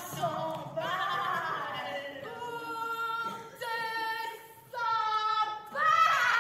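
Unaccompanied stage singing: a wavering voice, then three held notes of about a second each with short breaks between them, and a louder wavering voice near the end.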